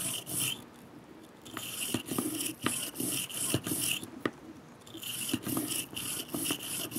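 Brass bristle brush on a cleaning rod scrubbing back and forth through the chambers of a Smith & Wesson 360SC revolver's cylinder: runs of scratchy scraping strokes with small sharp clicks, pausing briefly about a second in and again around four seconds. The brush is loosening powder grime from the chambers.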